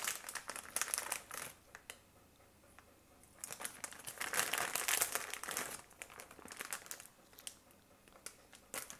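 Plastic bag of marshmallows crinkling as it is handled, in two stretches: through the first second and a half, then again from about three and a half to six seconds in, with a few light crackles after.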